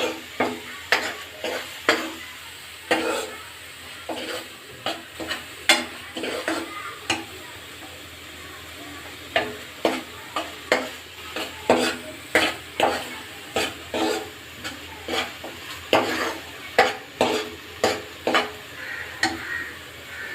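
A spoon or ladle knocks and scrapes against a pan while stirring ground masala paste frying in oil, over a steady sizzle. The knocks come irregularly, about one or two a second, with a short lull about eight seconds in. This is the stage of frying the masala until its raw smell goes.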